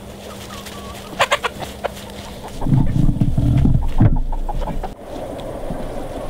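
Chickens clucking as they forage, with a few short sharp calls about a second in. A loud low rumble, the loudest sound here, runs for about a second and a half around the middle.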